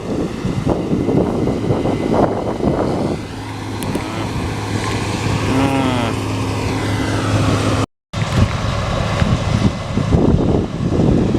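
Wind buffeting the microphone over the steady drone of a diesel farm machine's engine. In the middle the engine hum comes through clearest, with a short wavering whine, and the sound cuts out completely for a moment about eight seconds in.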